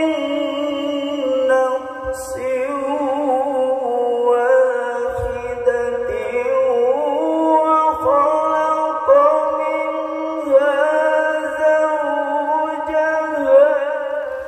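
A voice chanting a long, ornamented melody, holding drawn-out notes with wavering vibrato and gliding turns between them.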